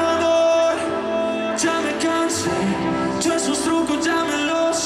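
Live pop band music through a concert sound system, heard from the audience: a male singer over electric guitar with sustained notes and light percussion hits.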